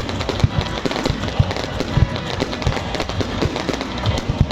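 Fireworks going off continuously: a dense, irregular crackle of sharp pops with heavier low booms mixed in.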